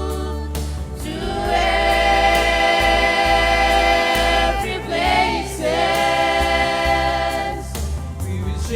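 Youth choir singing a gospel song in parts, holding two long chords with a short shift of pitch between them, over a steady low bass.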